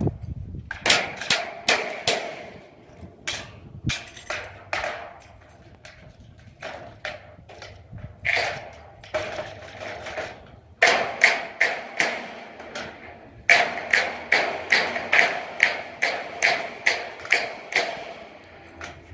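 Hammer blows on metal rack parts, struck in runs of quick strokes about three a second with short pauses between runs; each blow rings briefly.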